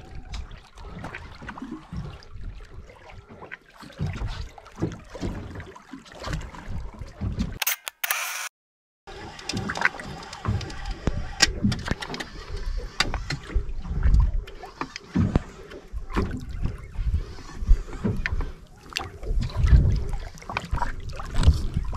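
Wind buffeting an action camera's microphone, with water sloshing and splashing against a small boat's hull as a hooked conger eel is brought alongside. About eight seconds in, a sharp click-like burst is followed by a second of dead silence, and another such burst comes right at the end, typical of a camera-shutter sound effect.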